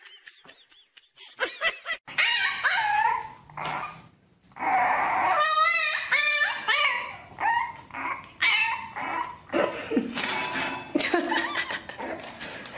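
A puppy whining and yipping in a run of high, wavering cries, starting about two seconds in, one of them with a quavering wobble.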